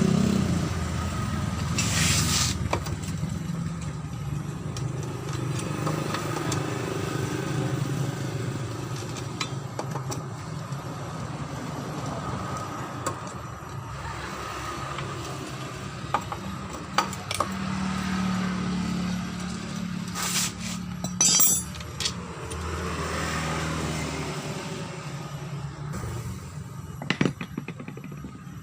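Honda BeAT Pop scooter engine running with the CVT final-drive gear case growling, a rough grinding noise from gears that have run dry of oil because of a leaking seal. A few sharp clicks, with a short rattle about three-quarters of the way through.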